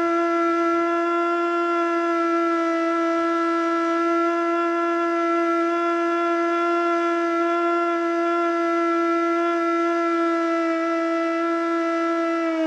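Federal Signal Model 2 outdoor warning siren sounding a steady held tone, with its pitch beginning to fall right at the end as it winds down. It never reaches full pitch, which the owner puts down to probably worn motor brushes.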